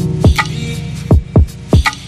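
Background electronic music: a held low synth chord fading out under a beat of deep kick drums and sharp percussive hits.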